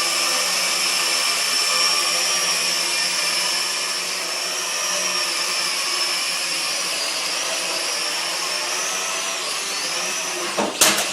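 Small toy quadcopter's motors and propellers whining steadily in a hover, the high pitch wavering slightly as the throttle shifts. A couple of sharp knocks come near the end.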